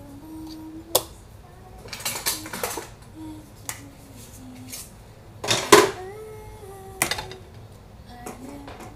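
Kitchen utensils and dishes clattering as they are dried and set down: a sharp knock about a second in, a rattle around two seconds, the loudest clatter a little past halfway and another knock about seven seconds in. A woman hums softly between the knocks.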